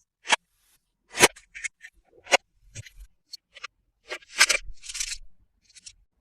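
Toy packaging being opened by hand: a series of sharp, separate clicks and snips, then a short scraping rustle about four and a half seconds in.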